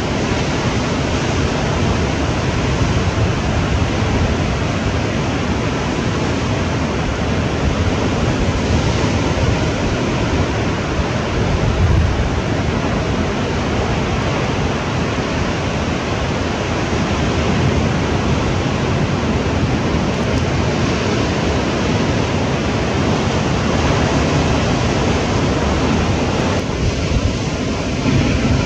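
Steady rush of ocean waves breaking, mixed with wind noise on the microphone.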